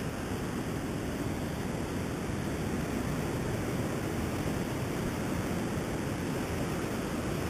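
Ocean surf breaking and washing around rocks: a steady, even rushing noise.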